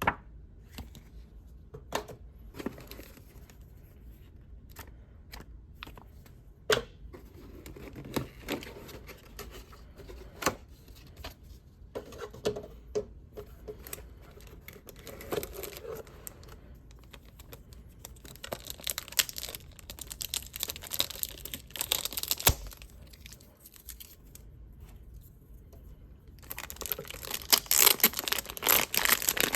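Packaging of a Pokémon trading card product being handled, torn and crinkled, with scattered sharp clicks and taps. The crinkling turns loud and dense near the end.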